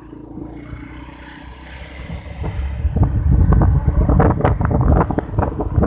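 Wind buffeting a phone's microphone during a motorcycle ride, over the low running of the engine. The buffeting swells to a loud, uneven gusting about three seconds in.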